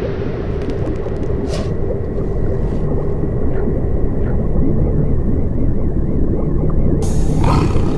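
Designed soundtrack of the media-facade performance: a loud, deep rumbling drone with a few faint clicks, a thin wavering high tone in the middle, and a rush of hiss that opens up near the end.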